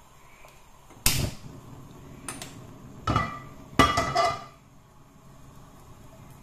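Metal clanks of an iron kadai being set on a gas stove's burner grate: four knocks about a second apart, the last and loudest ringing briefly.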